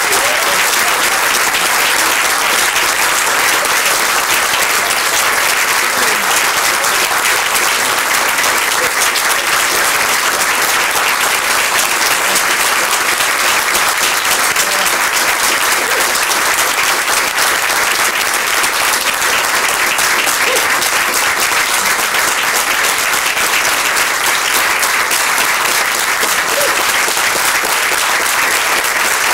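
An audience applauding: loud, steady, dense clapping that keeps up without a break.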